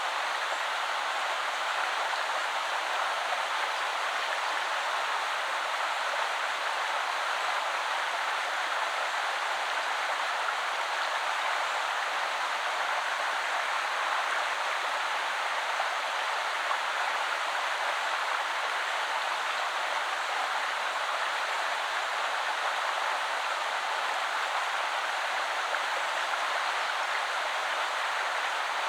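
River water flowing and splashing over stones: a steady, even rush with no breaks or distinct events.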